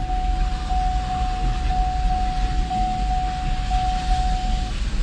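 Car driving, heard from inside the cabin as a continuous low rumble. Over it sounds a steady single high tone of unchanging pitch, which cuts off near the end.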